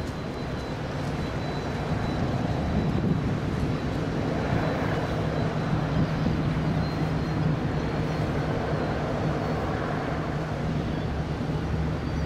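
Type 23 frigate's engines running as the warship passes close by under way: a steady low drone with a faint thin high whine above it.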